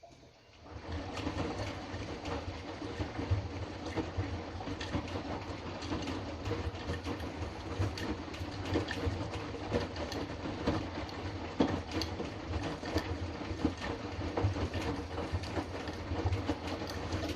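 Hotpoint washing machine drum turning during the main wash of a Fastwash 60 cycle: a motor hum with a steady clatter of laundry and water tumbling, starting about a second in and stopping suddenly near the end.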